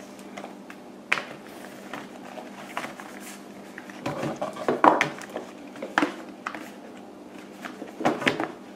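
White cardboard boxes and manuals being handled, slid together and set down on a glass tabletop: scattered soft knocks, taps and rustles, the firmest cluster about halfway through.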